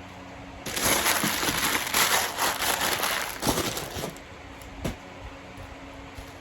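Wrapping around stone arrowheads being handled and unwrapped: a rustling, crinkling noise for about three seconds, then a single click.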